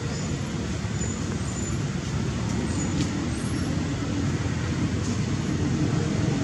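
Steady low rumble of outdoor background noise, with a faint click about three seconds in.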